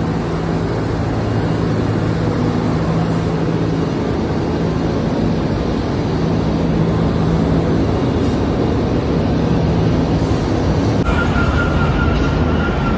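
Cement plant machinery running: a steady industrial roar with a low hum. About eleven seconds in it changes to a different machine noise with a steady high whine.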